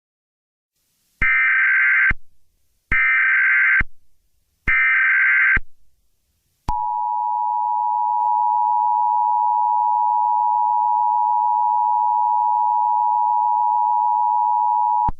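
Emergency Alert System alert opening: three roughly one-second bursts of the SAME header's data screech, then the two-tone EAS attention signal held steady for about eight and a half seconds before cutting off.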